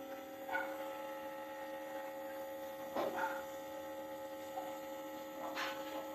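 Nebulizer air compressor running with a steady hum while its mask is held to a child's face for an inhalation treatment. Brief soft rustles come about half a second in, three seconds in and near the end.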